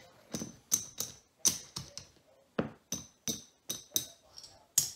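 Poker chips clicking against one another as a hand picks them up and stacks them: a dozen or so sharp, irregular clicks, two or three a second.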